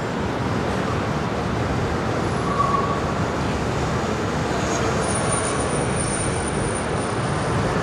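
Steady road traffic noise: a continuous, even rumble and hiss of passing vehicles.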